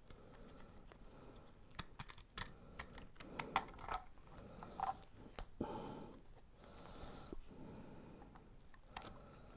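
Faint irregular clicks, scratches and crinkles of a razor knife poking through and cutting peel-and-stick wallpaper wrapped over an outlet cover plate.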